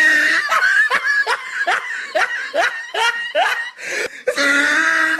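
A person laughing loudly in a meme sound clip: a drawn-out vocal note, then a quick string of about a dozen short laughing bursts, then another long held note near the end.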